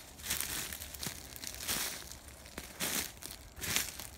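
Dry fallen leaves crunching and rustling in several uneven bursts.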